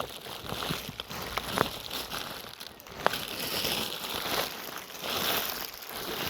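Rubbish being rummaged by hand: crinkling and rustling that comes in waves, with a few sharp clicks.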